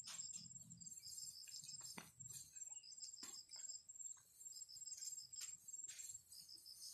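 Faint, rapid, high-pitched chirping of field insects such as crickets, coming in short runs that start and stop, with a couple of soft clicks.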